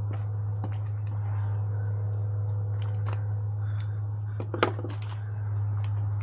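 Light scattered clicks and taps of a small screw and a Torx bit on an extension being handled and fitted, with one sharper click about halfway through, over a steady low hum.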